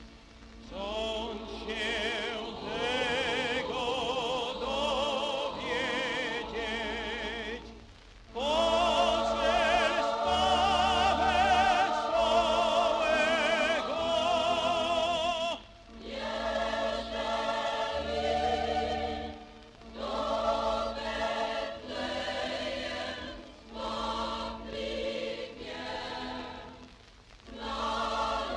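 Mixed choir singing a Polish Christmas carol (kolęda) with orchestral accompaniment, from a vintage LP recording. The voices carry wide vibrato and sing in phrases a few seconds long, with short breaks between them.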